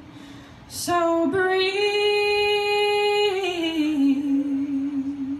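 A woman singing unaccompanied: after a short pause she sings "so", holding one long high note for about two seconds, then slides down and holds a lower note.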